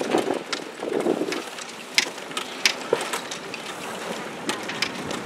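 Wind buffeting the microphone over open water, with a steady rush of water and irregular sharp clicks and knocks scattered throughout. There are muffled low thuds near the start.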